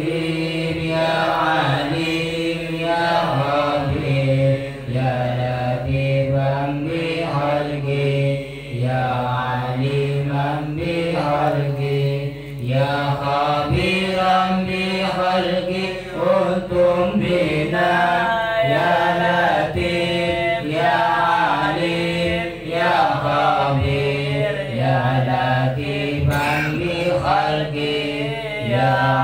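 Men's voices chanting Islamic dhikr in Arabic, led through a microphone: a continuous melodic recitation with phrases repeating every second or two.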